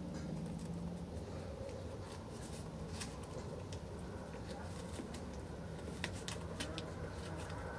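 Mule deer buck eating feed from a barrel: scattered crisp crunching clicks, bunched about three seconds in and again near the end, over a steady low hum.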